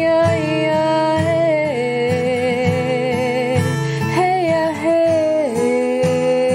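Acoustic song: a steady acoustic guitar strum under long held, wordless sung melody notes that glide between pitches.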